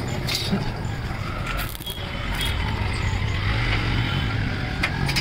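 Steel square tubing knocking and scraping on a concrete floor as the pieces of a welded table frame are set in place, a few short sharp clinks, over a steady low background hum.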